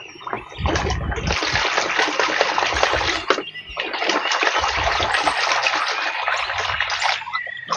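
Water splashing and running over a muddy plastic toy gun as it is rinsed clean, in two long spells with a short break a little past three seconds.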